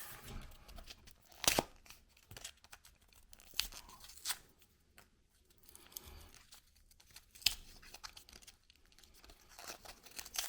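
Packaging of a new CR1616 coin cell battery being torn open by hand: irregular crackles, crinkles and sharp snaps, the loudest about a second and a half in.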